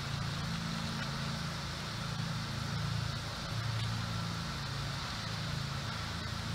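A low, steady motor drone over a constant hiss; its pitch drops slightly about three and a half seconds in.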